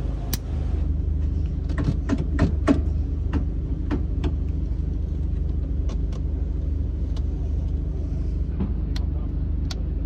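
Toyota Hilux rally-raid car's engine idling with a steady low rumble, overlaid by a run of sharp clicks and clunks from the cockpit lever and switches being worked. The clicks come quickly about two to four seconds in, then singly.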